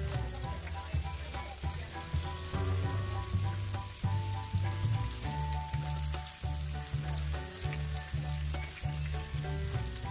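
Cubes of soft seasoned tofu deep-frying in plenty of hot oil in a wok give a steady sizzle, with a spatula now and then pushing them through the oil. Background music with a steady beat plays over it.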